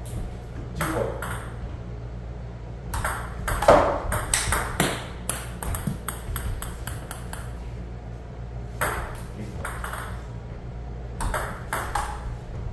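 Table tennis rallies: a ping-pong ball clicking sharply off rubber paddles and the table in quick runs of hits, with short pauses between points.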